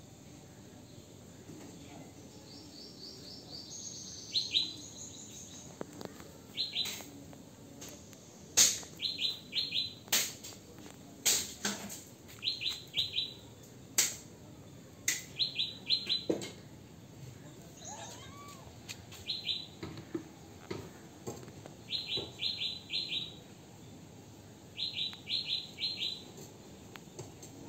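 A small bird calling repeatedly: quick runs of three or four short, high chirps, repeated every couple of seconds. Several sharp clicks sound through the middle.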